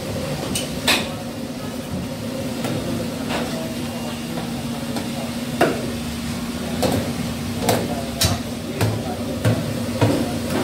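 Steady hum of commercial kitchen equipment under sharp clanks of metal cookware, fryer basket and griddle utensils, which come more often in the second half, roughly one every half-second to second.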